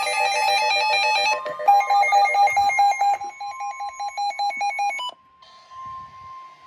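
Electronic emergency alert tones: rapid pulsing beeps at several pitches, overlapping, which cut off about five seconds in. A single steady high alert tone then holds on.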